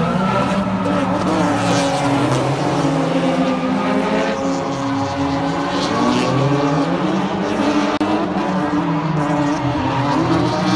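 Several drift cars sliding in tandem: their engines rev up and down, overlapping, over a steady hiss of tyres squealing as the cars slide.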